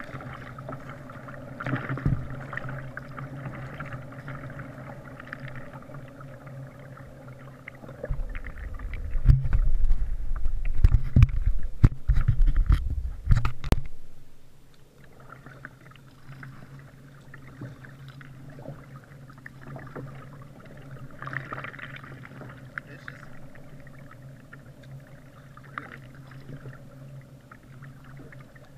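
Water lapping and paddle strokes on a kayak, picked up from the bow, over a steady low hum. About eight seconds in, a loud burst of low rumbling with knocks lasts about six seconds, then the water sounds go on.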